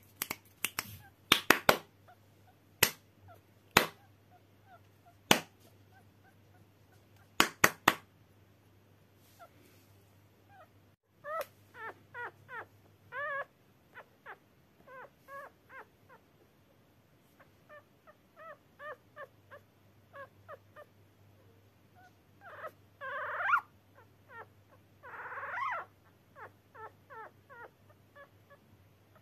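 About ten sharp test clicks in the first eight seconds, made to check a three-day-old puppy's reaction to sound. Then, from about eleven seconds in, the newborn puppy whines in short, high squeaks, with two longer, louder cries near the end.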